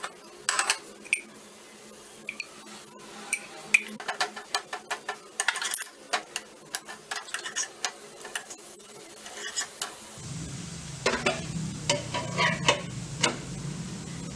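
Steel spatula scraping and tapping on a non-stick pan as pearl millet rotis are turned and pressed, with oil sizzling under them. Sharp clicks come every fraction of a second, and a low steady hum joins about ten seconds in.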